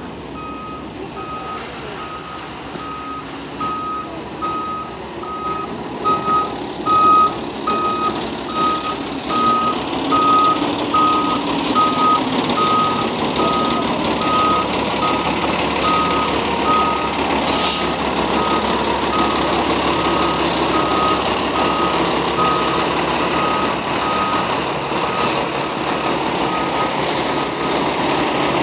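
FDNY fire engine backing into its firehouse: its reversing alarm beeps steadily, about once a second, over the diesel engine running. A few brief sharp sounds come now and then.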